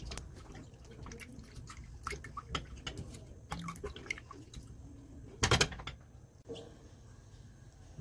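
Silicone spatula stirring cream in a small stainless steel saucepan: scattered wet clicks and light scrapes of the spatula against the pan, with one louder knock about five and a half seconds in.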